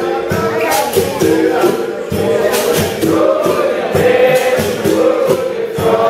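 Capoeira Angola roda music: berimbaus and a pandeiro playing a steady rhythm while the group sings the chorus.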